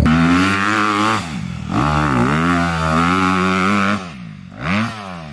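Off-road vehicle engine revving under throttle. The pitch drops and climbs back twice as the throttle is chopped and reopened. About four seconds in it falls away quieter, and near the end there is one short rev up and down.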